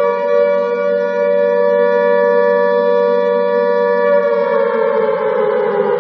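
Alarm siren sounding at one steady pitch, then its pitch slowly falls from about four seconds in.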